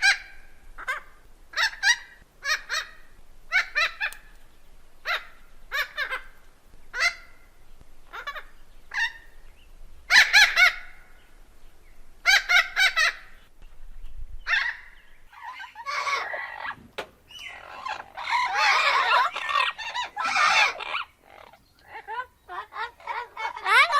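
Parrot calling with short, harsh squawks about once a second, then louder clustered calls, and a stretch of dense, rapid calling in the second half.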